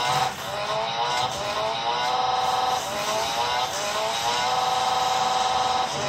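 Toy slot car racing set in play: a small electric slot car runs around the track while the set's sound-effects module plays a racing-engine sound. It goes as short rising whines about three times a second, broken twice by a steady engine-like tone.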